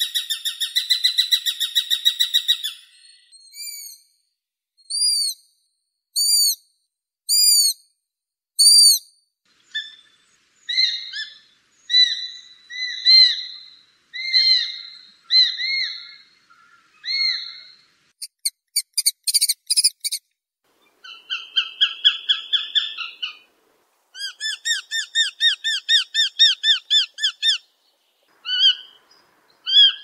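Eurasian sparrowhawk calling: fast chattering runs of sharp, high notes alternating with single drawn-out calls, separated by short pauses.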